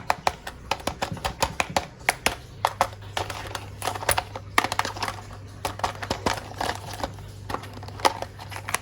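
Rapid, irregular clicks and taps of toy pieces being handled, with a low steady hum that comes in about two seconds in.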